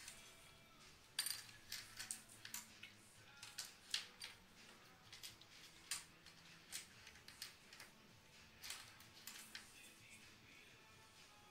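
Dog eating from a stainless steel bowl in a raised feeder: irregular light metal clinks and taps, sometimes several a second, as the dog's mouth and collar tags knock against the bowl.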